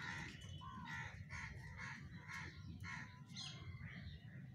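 Crows cawing repeatedly, about two short caws a second.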